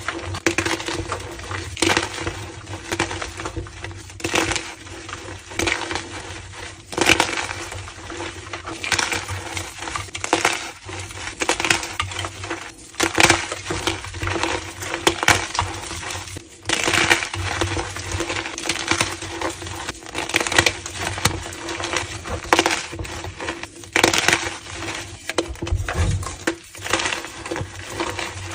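Homemade gym chalk slabs being crushed: a continuous run of squeaky crunching and crackling as the chalk breaks and crumbles, with louder crunches every second or two.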